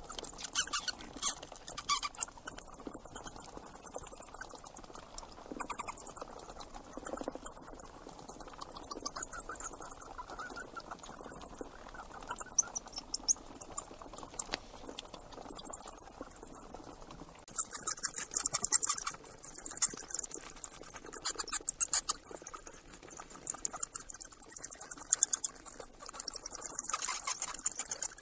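Rats squeaking: rapid runs of very high, thin squeaks and chirps in bouts of a second or two, with short pauses between.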